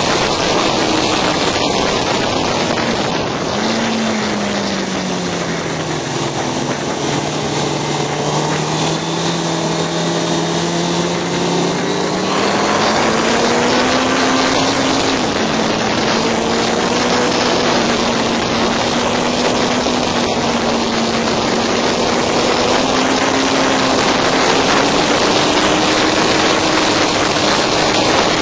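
Motorcycle engine heard from on board at track speed under a heavy rush of wind. Its note drops about four seconds in as the bike slows through a corner, stays low, then climbs again about twelve seconds in and holds steady under throttle.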